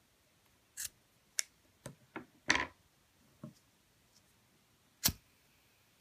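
Scissors snipping paracord strand ends: about seven irregular sharp clicks and snips, the loudest about two and a half seconds in and another near the end.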